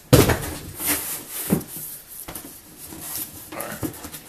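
Cardboard box and packaging being handled and opened: a sudden loud rub or knock at the start, then several shorter scrapes and rustles.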